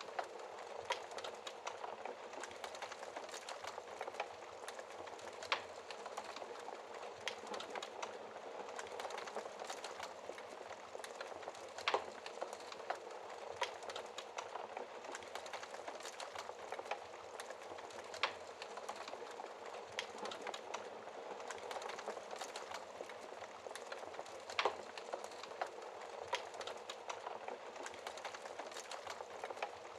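Wood fire crackling in a fireplace: a steady, dense crackle with a few sharper pops scattered through it.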